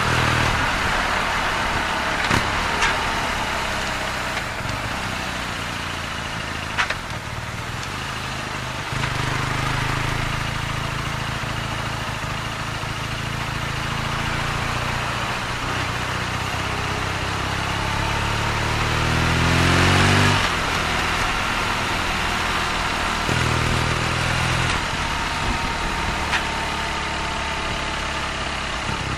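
BMW R nineT's boxer twin engine in stop-and-go city riding: the revs fall at first and then settle at a steady idle, and about two-thirds of the way through the engine revs up in a rising pull that peaks and drops off before running on at low revs. A few sharp clicks come in the first several seconds.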